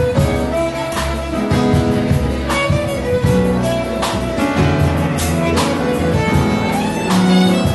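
Live band playing: a violin carries the melody in held notes over an upright double bass and a drum kit, with regular drum and cymbal strikes.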